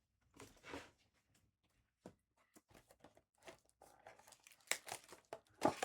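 Trading card packs being torn open and their wrappers crinkled, in short scattered rustles and snaps that grow louder and busier near the end.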